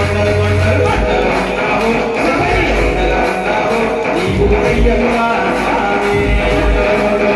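Devotional bhajan: a man sings through a microphone and PA over music with a deep regular beat, and the listeners clap along.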